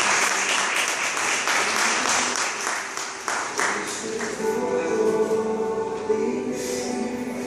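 Audience applauding for the first three seconds or so, dying away as slow music with long held chords comes up.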